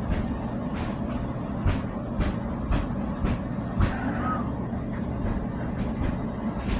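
Old bathroom tiles being broken off the wall: a steady mechanical rumble with sharp knocks about twice a second.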